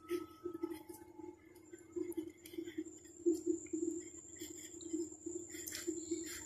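Marker pen writing on paper: faint, irregular squeaks and scratches of the pen strokes.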